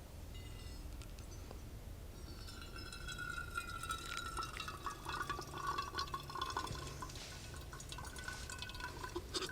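Hot water poured over a paper coffee filter to rinse it, trickling and dripping into the cup below. From about two seconds in, a ringing tone slowly falls in pitch as the water runs.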